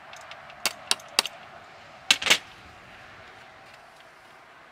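Clacks and clinks of a metal wind turbine hub and blades being handled and set down on a glass tabletop: three knocks about a second in, then a louder double clatter a little past two seconds.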